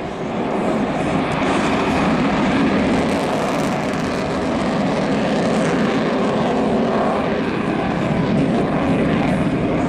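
Propeller airplane's engine running, loud and steady, swelling about half a second in as the plane passes overhead.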